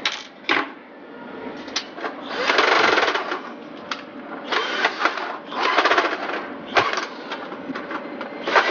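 Cordless drill-driver whirring in about four short bursts as it drives screws into the crepe maker's metal cover plate, with a couple of sharp clicks near the start.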